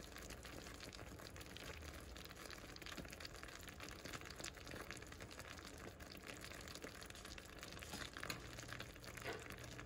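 Caramel sugar syrup boiling in a saucepan, a faint, steady bubbling and crackling of the foaming mixture as it heats toward the hard-ball stage.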